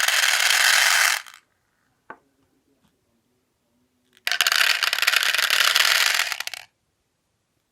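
Loose birdshot pellets being poured into a container, a dense rattling patter. One pour ends about a second in, and a second pour runs for about two seconds from about four seconds in.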